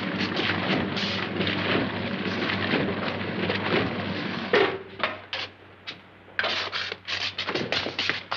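Electric washing machine running with a rhythmic, noisy chugging of about three or four beats a second. It breaks off sharply about halfway through, and short, uneven noises follow.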